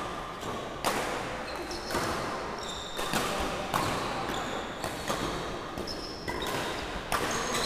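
Badminton rally: sharp racket strikes on the shuttlecock, roughly once a second, each echoing in the hall, with short high squeaks of court shoes on the wooden floor in between.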